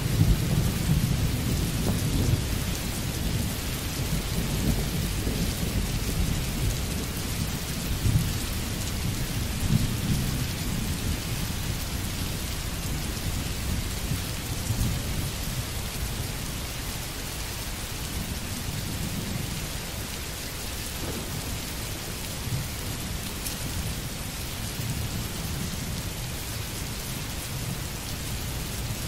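Steady rain with a low rolling rumble of thunder underneath, strongest at the start.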